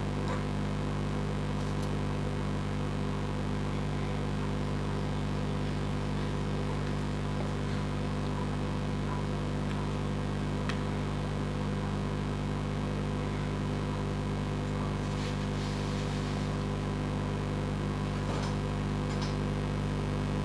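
Steady low hum throughout, with a few faint rustles and taps of wooden ice-cream sticks and paper being handled and pressed down, mostly in the second half.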